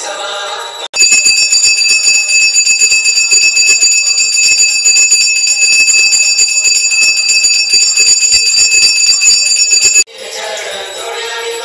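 A small hand bell rung rapidly and without pause, as in the ringing during an aarti offering. It cuts in abruptly about a second in and stops just as abruptly near the end, with devotional music on either side.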